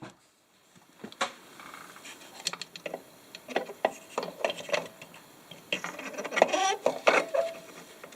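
Metal clicks, knocks and scraping as a Beckett oil burner's nozzle assembly is slid back into the burner housing by hand, in irregular bursts that are busiest near the end.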